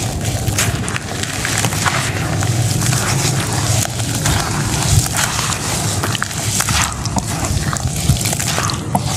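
Hands crumbling dry red sand and dirt into a bowl, then squeezing and kneading it in water: a steady gritty crunching and crackling, turning to wet squelching, over a low rumble.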